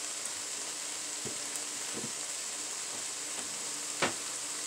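Diced onion and red pepper sizzling steadily as they sauté in hot grease in a pan, with a few light knocks from stirring, the sharpest near the end.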